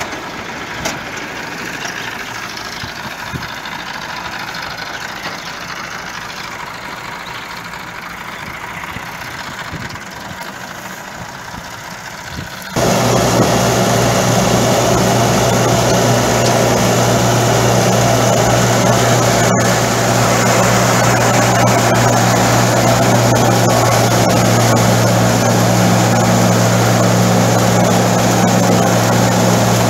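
Massey Ferguson 385 tractor's diesel engine running at a low, idling level. Less than halfway through it changes abruptly to a loud, steady run as the tractor drives a KSA straw reaper cutting wheat stubble for chopped straw, with the reaper's machinery clattering under the engine note.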